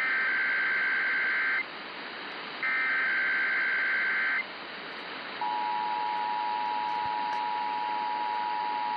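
Emergency Alert System tones over a radio broadcast. First come the last two SAME header data bursts, each just under two seconds long and about a second apart. About five and a half seconds in, the steady two-tone EAS attention signal starts and holds. A steady radio hiss runs beneath.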